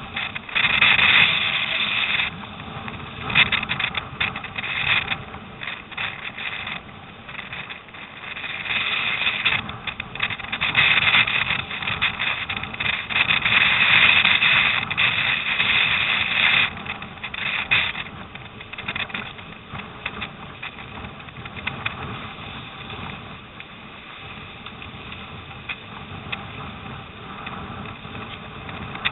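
Storm wind buffeting the microphone and water rushing and splashing along a surfski's bow, swelling into loud surges of spray hiss, longest from about ten to seventeen seconds in.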